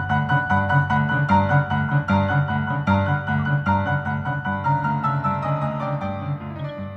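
Background piano music playing a quick, even run of notes, several a second, that slows and fades near the end.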